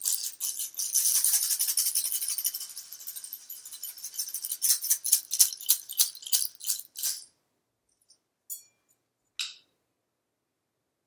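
A hand-shaken rattle or shaker, first shaken continuously as a steady hiss, then in separate shakes about three a second that stop about seven seconds in. Two faint short rustles follow.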